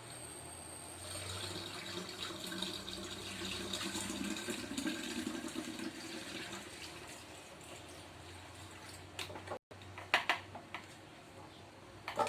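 Homemade lemonade being poured into a bottle, a steady pour lasting several seconds before it tails off. A few sharp knocks follow near the end.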